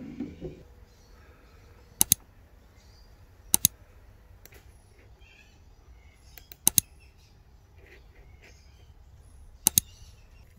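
Four sharp double clicks, each a quick pair, coming at uneven gaps of one to three seconds, with faint bird chirps behind them.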